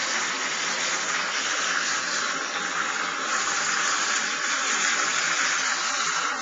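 Tap water running steadily, an even hiss with no breaks.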